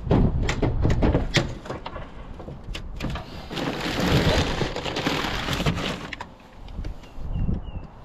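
Cleaning debris out of a utility trailer's bed: a run of knocks and clatter for about three seconds, then a few seconds of rushing, scraping noise.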